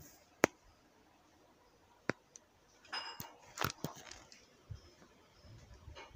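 A few sharp clicks: single clicks about half a second and two seconds in, then a quick run of clicks with some rustling around three to four seconds in.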